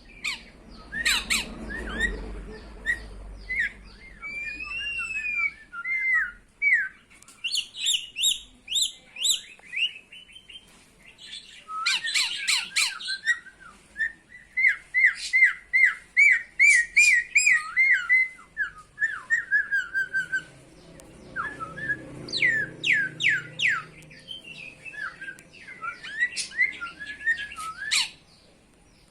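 Pet Nias hill myna calling: a string of loud squawks, chirps and whistled notes, with a fast run of repeated whistles about halfway through.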